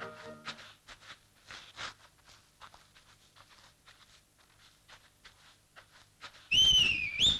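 Cartoon sound effects: faint footsteps in snow, about two steps a second, then near the end a loud high whistle that dips and then slides sharply upward.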